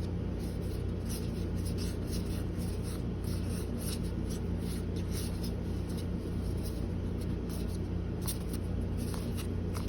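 Magic: The Gathering cards being slid one behind another in the hand, a run of short, irregular papery scrapes and flicks. A steady low hum sits underneath.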